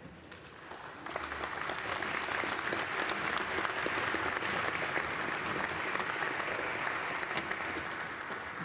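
A large audience applauding. It swells up about a second in and tails off near the end.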